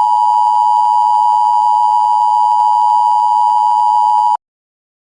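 Emergency Alert System style attention tone: a loud, steady electronic alarm of two close pitches just under 1 kHz, sounded together. It cuts off abruptly near the end.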